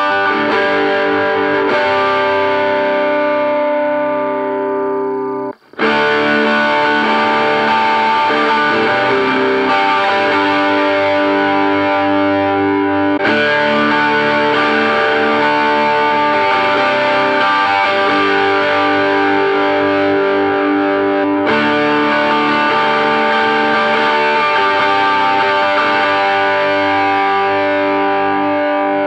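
Electric guitar played through a small combo amp and an overdrive pedal, with distorted, sustained chords. It comes in short takes, each on a different test pickup coil (flat slug poles or screw poles, single-coil or humbucking), that change abruptly about 5.5, 13 and 21.5 seconds in.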